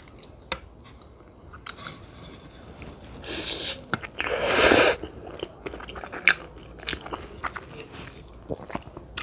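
Close-miked eating of cheesy spaghetti and meatballs: wet chewing with small mouth clicks, and two louder rushing noises in the middle.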